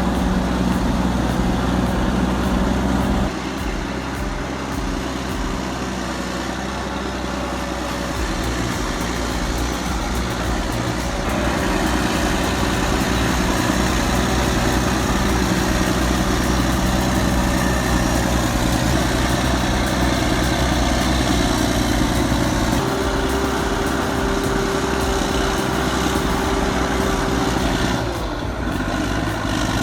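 Caterpillar D8H crawler bulldozer's diesel engine running steadily under work, its pitch and load shifting several times.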